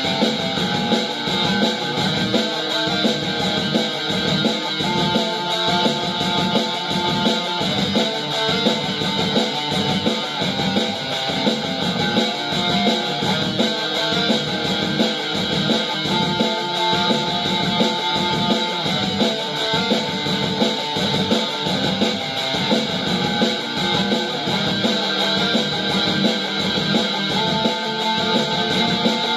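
Instrumental electric guitar music: a picked guitar line played over layered, looped guitar parts with a steady rhythmic pulse.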